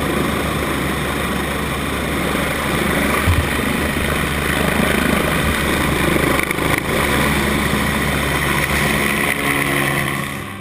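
A helicopter running close by on its skids on the snow: loud, steady turbine and rotor noise that drops off near the end.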